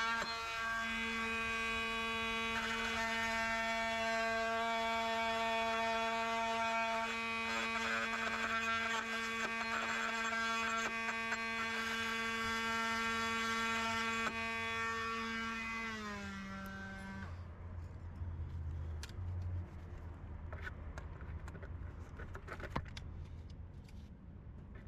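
A steady machine hum that winds down in pitch and stops about 17 seconds in, like a motor switched off, followed by quieter scattered clicks and handling noise.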